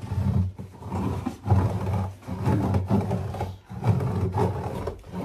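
Hand scraper rasping against wallpaper on a closet wall, in uneven strokes with short pauses between them.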